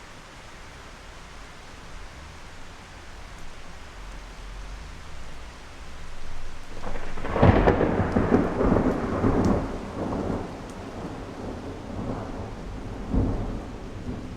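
Steady rain falling, with a clap of thunder about halfway through that rolls on in rumbles for a few seconds; a last, smaller rumble comes near the end.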